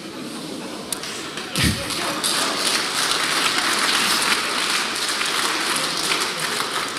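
Audience applauding, a dense patter of many hands clapping that swells about two seconds in and then holds steady.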